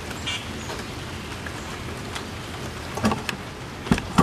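Steady rain falling, an even hiss, with a couple of sharp knocks near the end.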